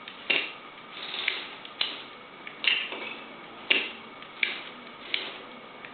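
Lego Technic plastic parts clicking and knocking as the remote-controlled tracked robot is driven, about seven sharp clicks at uneven intervals of roughly a second, over a faint steady hum.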